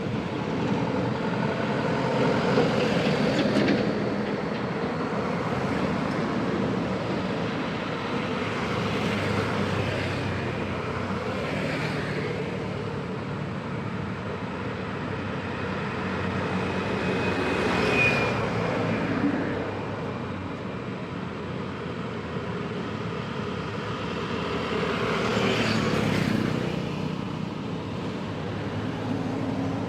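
Busy road traffic: many vehicle engines and exhausts running and passing in a continuous din, swelling as louder vehicles go by, with a brief high-pitched tone about eighteen seconds in.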